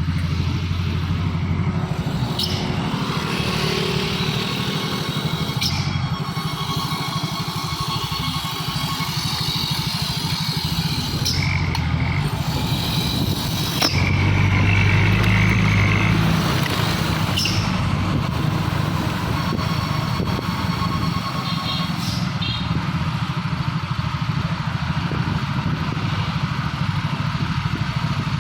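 Road traffic: vehicle engines running steadily, with one growing louder for a couple of seconds around the middle.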